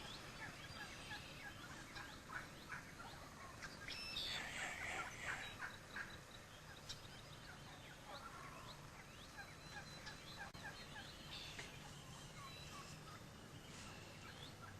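Wild turkeys gobbling and calling, faint, in a run of short repeated notes with louder rattling gobbles about four seconds in and again near twelve seconds.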